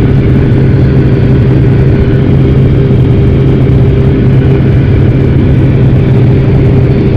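Loud, steady drone of a Pilatus PC-6 Porter's engine and propeller, heard inside the cabin as the aircraft climbs to jump altitude.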